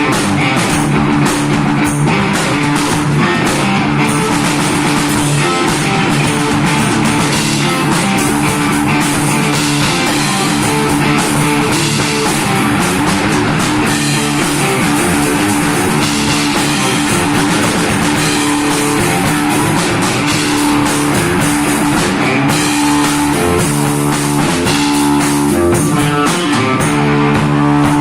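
Kids' rock band playing an original hard rock song live, with electric guitar riffs over a drum kit.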